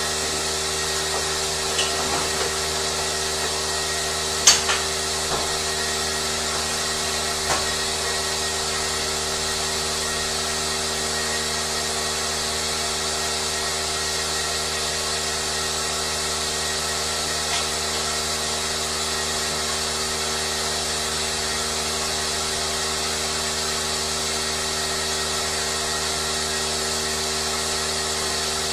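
Steady machine hum, unchanging throughout, with a few sharp clicks or knocks in the first eight seconds.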